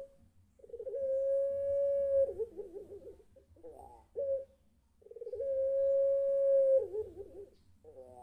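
Puter pelung (Barbary or ringneck dove) cooing: two long, drawn-out coos, each a held steady note that opens and closes in a quick rolling warble, with a few short broken notes between them. This is the long 'crying' coo that the keeper takes for the bird calling its mate.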